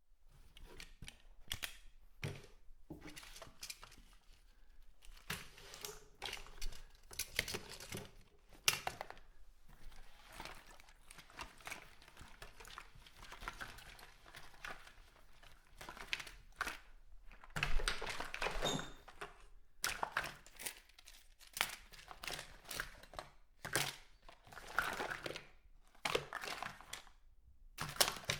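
Someone rummaging through a bathroom cupboard: items are shifted, clicked and knocked against each other and the shelves, with crinkling rustles in between. There is an irregular stream of small knocks, with a heavier knock about eighteen seconds in.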